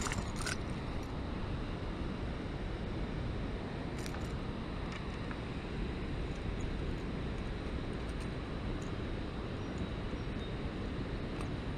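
Steady rushing background noise, with a few faint clicks as the treble hooks of a Berkley Choppo 90 topwater lure are worked free of a small smallmouth bass by hand.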